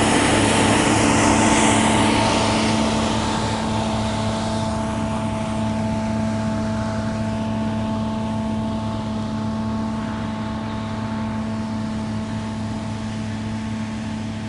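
Claas Lexion 460 combine harvester working, its engine running as a steady hum over the rush of the threshing gear and straw chopper. The rush fades after the first few seconds, and the whole sound slowly gets quieter as the combine moves away.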